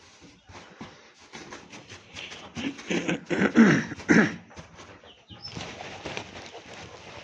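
Birds calling, loudest in a short run of calls about three to four seconds in, over scattered light clicks and rustling.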